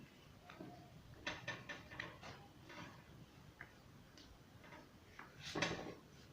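A sheet of A4 paper rustling and crinkling as it is folded and creased by hand, in short crisp bursts: a cluster about a second in and a louder one near the end.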